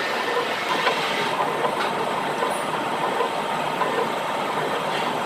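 Steady mechanical running noise with a faint high whine and a few light clicks.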